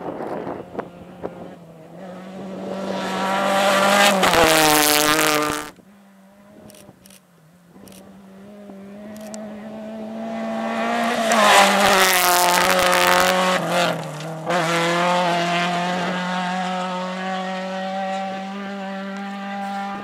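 Rally cars on a gravel stage passing one after another. Each engine note grows louder and climbs as the car approaches, then drops as it goes by. The first pass cuts off suddenly about six seconds in. A Ford Fiesta rally car passes loudest around twelve seconds in, and another engine note holds steady near the end.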